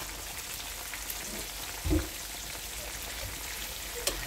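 Chicken wingettes frying in hot oil in a pan, a steady sizzle. A low thump comes about two seconds in and a sharp click near the end.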